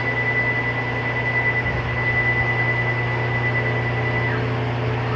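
CNC plasma table's Y-axis stepper motors driving the gantry, a steady high-pitched whine over a low hum, the whine stopping about four seconds in as the axis comes to a halt.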